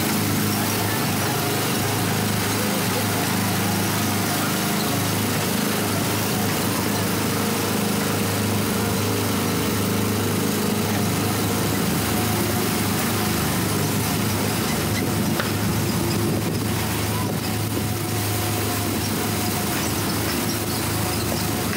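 Small gasoline engine of an Autopia ride car running steadily at cruising speed, a constant low hum under a steady hiss.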